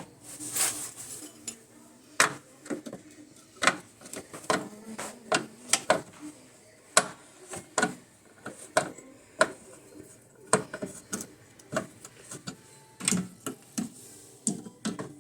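Irregular clicks and clacks of hard parts being handled and fitted, about one or two sharp knocks a second, during work on a washing machine's actuator.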